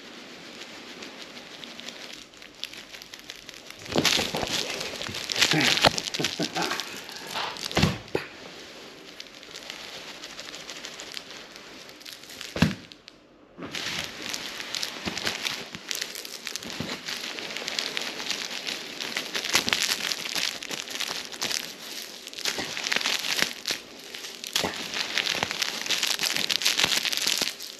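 Dry straw fringe of a toy centipede crackling and rustling as a cat grabs, bites and kicks at it on a bedsheet. It comes in irregular bursts, drops out briefly about halfway, then crackles almost without pause.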